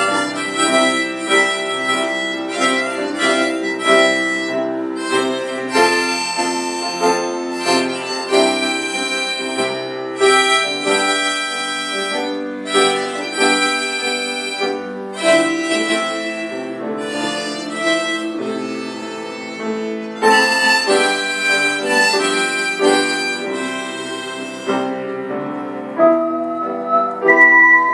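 Instrumental music: a saxophone playing a slow melody over a backing track with a steady beat.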